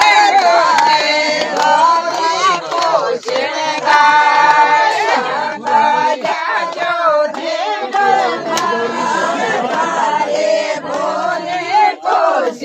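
A group of women singing a Rajasthani folk song together, with a few hand claps.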